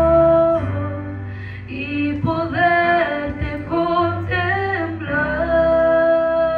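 Worship song: a voice singing long held notes, with slides between pitches, over sustained low accompaniment.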